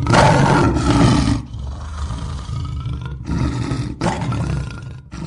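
Logo intro sound effect: a fire-burst whoosh with a deep rumble. It hits suddenly and is loudest in the first second and a half, then swells again twice.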